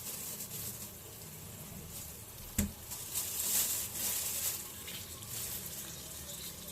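Chicken wings frying in hot oil in a pan: a steady sizzle, with one sharp click about two and a half seconds in.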